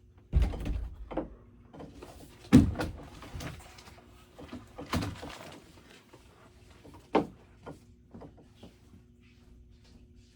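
A door being handled: a few sharp knocks and thumps, the loudest about two and a half and five seconds in, over a faint steady hum.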